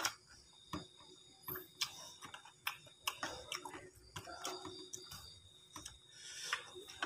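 Close eating sounds of a person chewing and slurping fried instant noodles, with irregular small clicks of mouth noises and a metal spoon.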